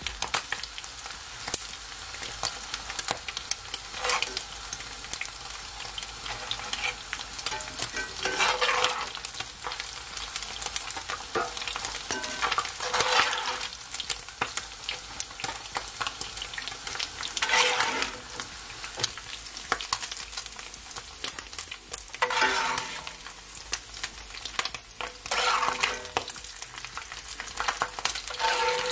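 Fish frying in hot oil in a black skillet, sizzling steadily. A spatula stirs and scrapes against the pan every few seconds as the pieces are turned and lifted out.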